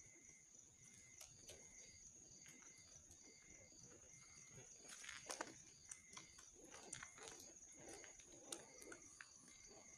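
Campfire crackling with scattered sharp pops, the loudest about halfway through, over a steady high-pitched insect trill and a repeating chirp of night insects.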